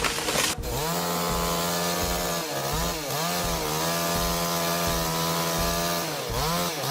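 Chainsaw engine running at high revs, its steady whining note dipping in pitch briefly twice and picking back up, after a short burst of noise at the start.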